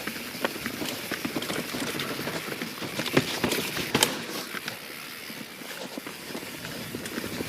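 Irregular knocks, clicks and scuffs of a mountain bike and its rider's feet working over rocky trail steps after stalling, with a sharper knock about four seconds in.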